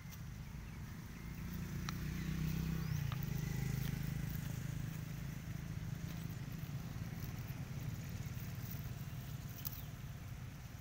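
A low, steady engine hum, growing louder about two seconds in and then holding steady, with a few faint clicks over it.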